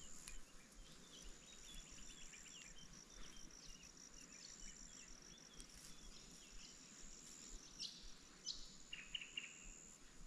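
Faint outdoor background of insects trilling, a high steady buzz and a fast pulsing trill, with scattered short bird chirps.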